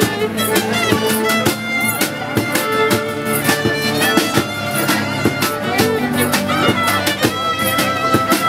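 Live street band playing: a bowed string melody over a drum kit, with frequent drum and cymbal hits.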